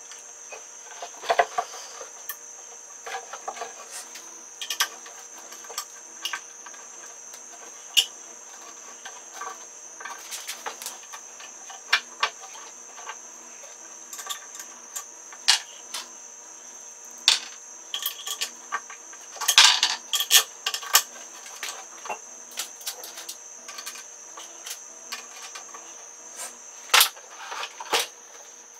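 Scattered knocks, taps and bumps of plywood panels and a small electric motor being handled and set in place on a plywood bench top, with a busier run of knocks about twenty seconds in. A thin steady high-pitched tone runs under it.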